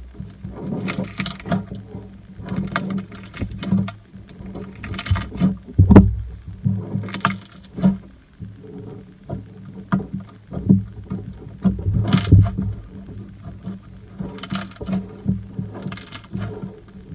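Slime being squished and kneaded by hand: irregular wet squelching and popping, with sharp clicks every second or so over a low steady hum.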